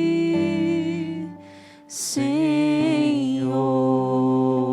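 Slow worship song in Portuguese: a voice sings the long held words "seguir, Senhor" over sustained instrumental accompaniment, with a short break about a second and a half in.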